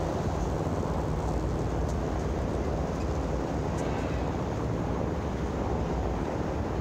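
Steady low rumbling outdoor noise, with a couple of faint clicks.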